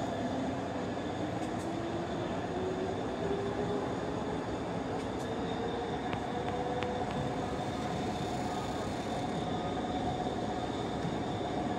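Railway works train, a locomotive pushing loaded flat wagons, rolling slowly along the track. A steady whine runs throughout, with a second whine rising slowly in pitch over the first half.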